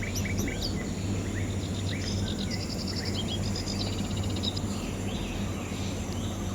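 Several forest birds chirping, with short falling notes and quick trills, over a steady rushing noise of running stream water.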